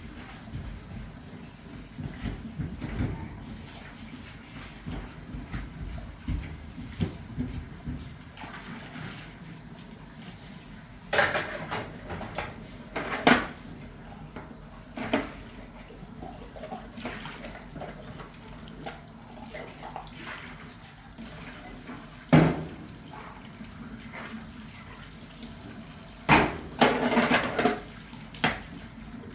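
Water splashing and running as dishes are washed by hand, with scattered knocks and clatters of dishes and pots, the loudest clusters about halfway through and near the end.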